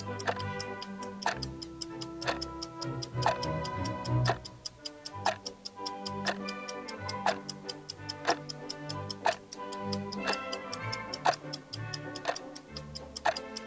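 Clock ticking sound effect, a sharp tick about once a second, over background music with held notes.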